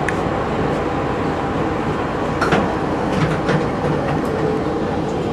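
Kiha 32 diesel railcar dressed as a 0-series Shinkansen, heard from aboard: a steady engine and running-gear rumble with a few sharp clicks from the wheels and track near the middle.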